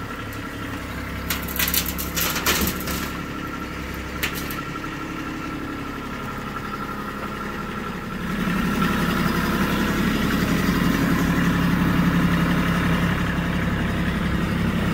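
Kubota compact tractor's diesel engine running steadily while it works its front loader and grapple. A few sharp clanks come in the first few seconds. The engine gets louder and lower-toned about eight seconds in.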